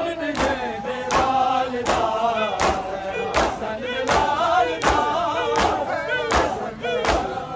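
Crowd of male mourners chanting a noha (Shia lament) in unison, with many hands slapping bare chests together in matam, about one sharp beat every three-quarters of a second.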